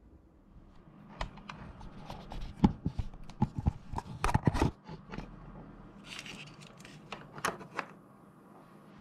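A run of sharp clicks and knocks, densest about two to five seconds in, with a short hiss about six seconds in.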